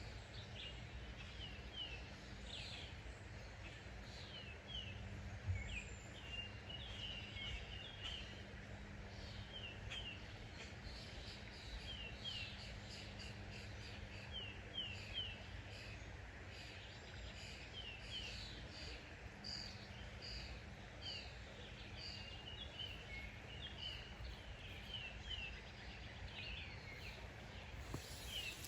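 Small birds chirping: many short, high, falling notes, often in quick pairs, repeated throughout over a steady, low outdoor background noise.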